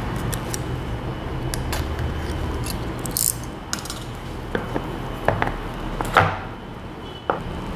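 Scattered clicks, taps and scrapes of a cardboard smartphone box being handled as its seal stickers are slit with a pen, over a steady low background hum. There is a short rustling scrape about three seconds in and a louder handling knock about six seconds in.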